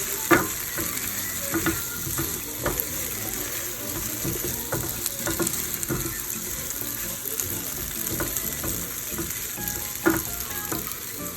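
Rice noodles sizzling as they stir-fry in hot oil with garlic, ginger and green onion, with a steady hiss and sharp clanks of the utensil against the pan every second or two, the loudest near the start and near the end.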